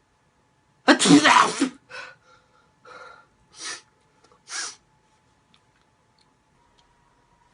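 A person sneezing: one loud sneeze about a second in, followed by four shorter, quieter breathy sounds over the next few seconds.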